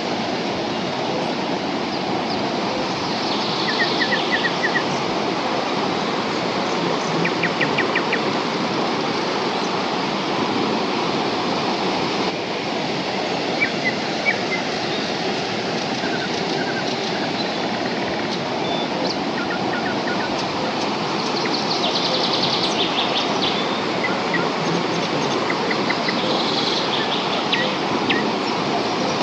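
Steady rush of a large waterfall, with short chirping bird trills over it several times.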